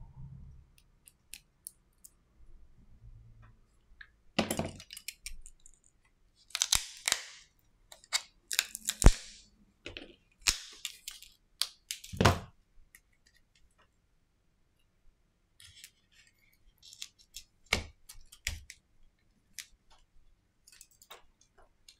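Small clicks, snaps and scrapes from hands working on a disassembled smartphone: a plastic opening pick prying along the phone's frame and parts being pressed and handled. About five sharp clicks stand out at uneven gaps, the loudest about nine seconds in.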